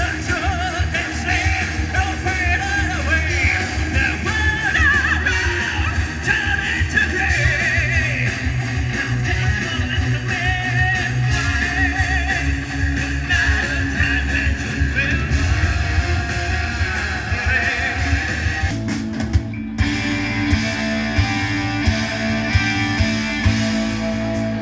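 Rock band playing live: a male singer over electric guitars, bass and drums. About twenty seconds in, the music breaks off and a different guitar passage starts.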